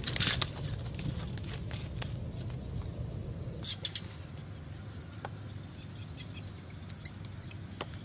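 A pigeon's wings beating in a brief loud flurry at the start as it trips a bamboo snare trap. Then faint outdoor ambience follows, with scattered small bird chirps and ticks.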